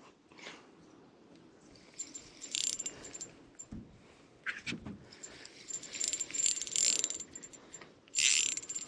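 Fishing reel being cranked while a hooked fish is fought in, its gears clicking in three short spells with pauses between.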